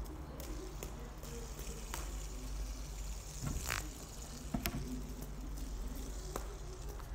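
Scattered light clicks and taps as a hand flicks and handles a plastic fidget spinner, over a low steady hum.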